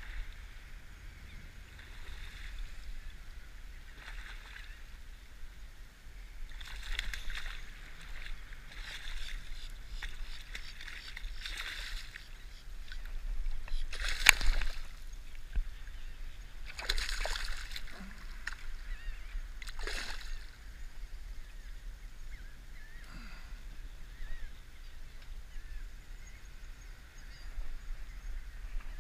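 A hooked fish thrashing and splashing at the water's surface several times while it is landed by hand, the loudest splash about halfway through. A steady low rumble of wind on the microphone runs underneath.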